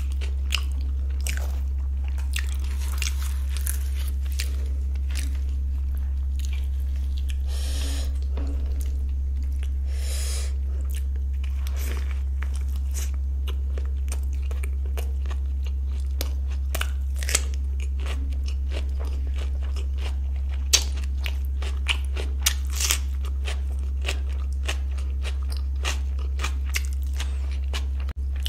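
Close-miked chewing of food, with many crisp crunching clicks, typical of raw onion and cucumber salad eaten with luchi and paneer curry. A steady low hum runs underneath.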